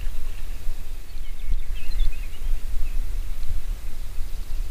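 Outdoor ambience: a steady low rumble with a few short bird chirps about a second and a half in.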